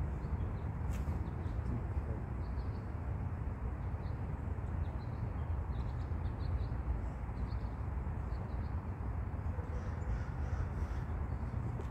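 Steady low outdoor rumble with faint, scattered high bird chirps and a single light click about a second in.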